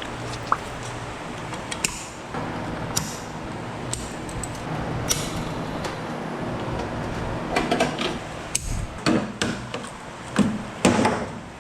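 Irregular metal clicks and knocks from hand tools and parts being worked while a cabinet's wiring is taken apart, over a steady low hum; the knocks come thicker and louder near the end.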